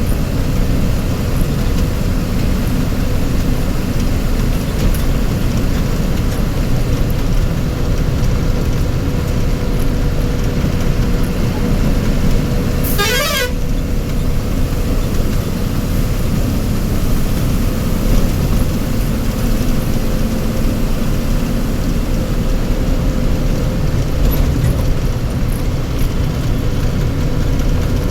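Vehicle engine running steadily with a faint constant whine, and a vehicle horn sounding once, briefly, about halfway through with a sweeping pitch.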